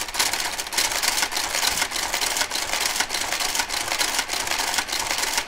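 Knitking Compuknit III (KG-93) motorised garter carriage running along the needle bed of a KH-965 knitting machine while casting off: a steady mechanical whir with a dense run of clicks as it works the needles.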